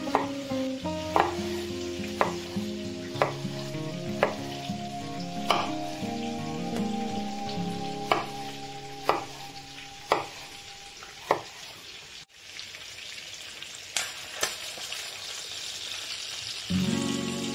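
A steady sizzling hiss like food frying, under background music of held chords with sharp taps about once a second. After a sudden break about two-thirds of the way through, mostly the hiss remains until the music returns near the end.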